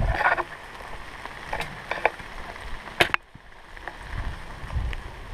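Clothing, gear and brush rustling close to the microphone as an airsoft player pushes through undergrowth. A few light clicks come about one and a half to two seconds in, and one sharp snap about three seconds in is the loudest sound.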